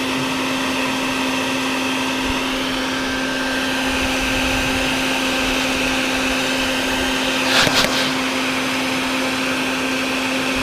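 Vacuum cleaner running steadily, with a constant hum and a higher whine, sucking up wasps from a nest. There is a brief louder rush about three-quarters of the way through.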